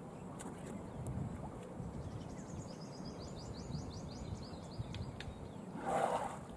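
Lake-shore ambience with low wind and water noise. A bird gives a trill of quick, falling high notes, about five a second, from about two to nearly five seconds in. Near the end a short splash rises sharply as a bathing elephant throws up water.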